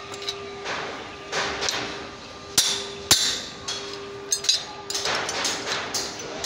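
A steel rebar rod striking and working against a rusty steel scaffolding coupler clamped on a tube, giving irregular sharp metal clanks with some scraping. Two loud strikes come about two and a half and three seconds in, then a quicker run of knocks near the end.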